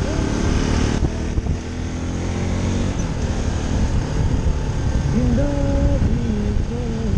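Motorcycle engine running steadily under a riding speed, with wind rushing over the microphone. A short wavering pitched sound rises and falls about five seconds in.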